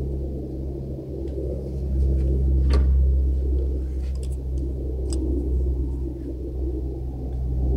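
Steady low rumble of an airplane flying high overhead, with a few faint clicks about three, four and five seconds in.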